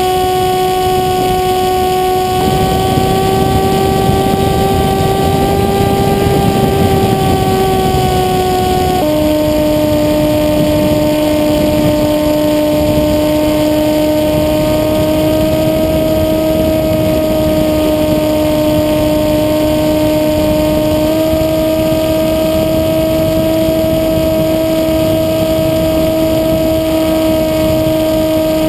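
Electric motor and propeller of a 1200 mm depron flying wing in flight, heard from its onboard camera: a steady whine over a rush of wind. The pitch drops clearly about a third of the way through and shifts slightly a couple of other times as the throttle changes.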